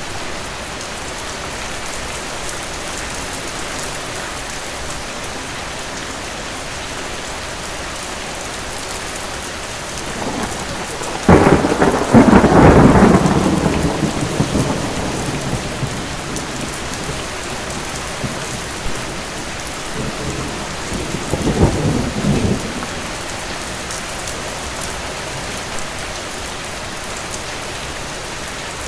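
Heavy steady rain, with a sudden loud thunderclap about a third of the way in that rumbles away over a few seconds, and a second, weaker roll of thunder a little past the middle.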